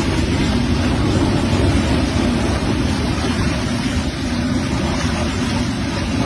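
Steady, loud rushing noise of floodwater, with wind noise on the microphone.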